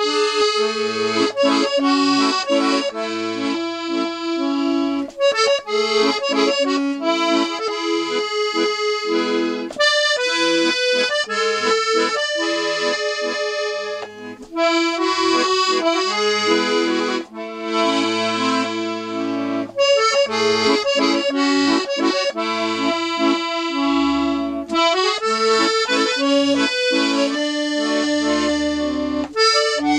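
Restored Galanti piano accordion playing a French tune: a melody on the treble keys over bass-button basses and chords, with short breaks between phrases. Its reeds are freshly cleaned and retuned.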